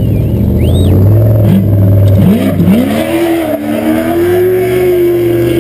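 Off-road race buggy's engine accelerating: its pitch climbs about two seconds in, then holds steady at high revs as the buggy speeds along the dirt course.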